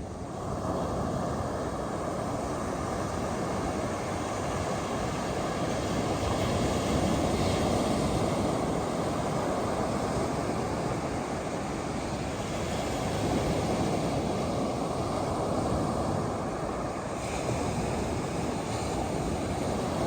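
Ocean surf breaking and washing up the beach: a steady rushing noise that swells and eases with the waves.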